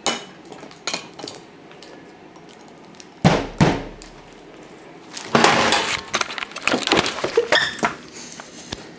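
Spoon clinking and knocking against a glass jam jar, with a heavier knock about three seconds in and a longer stretch of clatter a little past the middle.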